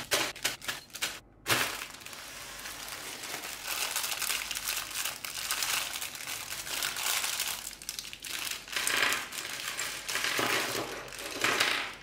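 Thin clear plastic parts bag crinkling as it is handled and opened by hand: a few separate sharp crackles in the first second and a half, then continuous crinkling.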